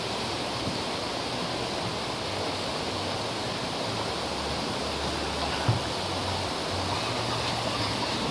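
Steady rushing of river water running over rocks in a canoe slalom course, with one brief low thump about two-thirds of the way through.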